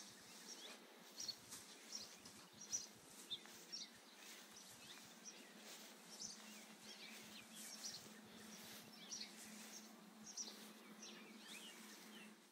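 Quiet outdoor ambience: scattered short bird chirps over a faint steady hum, with a few light clicks.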